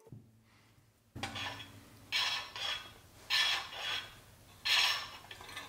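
Pressed-steel toy truck parts being handled and fitted together by gloved hands: four short scraping, rubbing sounds after a quiet first second.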